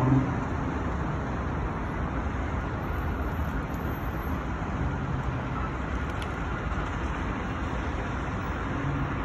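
Steady noise of road traffic on a busy street, with car and bus engines, mixed with the rush of a swollen river running high after heavy rain.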